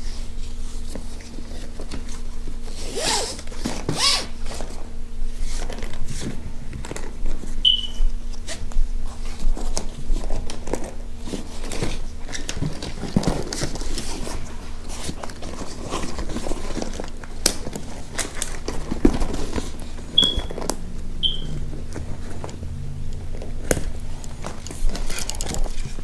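Handling noise from a hard-shell scooter storage bag and its shoulder strap being turned over by hand: rustling, scrapes and small clicks, over a faint steady hum, with three short high chirps.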